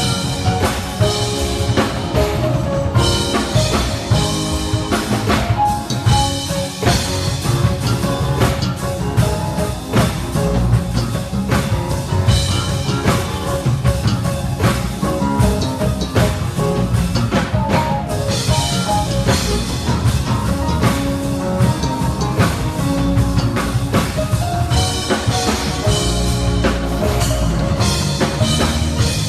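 Live band playing a groove: busy drum kit with snare, rimshots and kick drum over bass guitar and keyboard chords.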